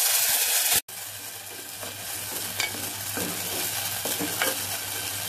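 Green chutney paste frying in hot oil in a nonstick pan. A loud sizzle drops sharply a little under a second in, then continues as a quieter steady sizzle while a wooden spatula stirs it, with a few light scrapes.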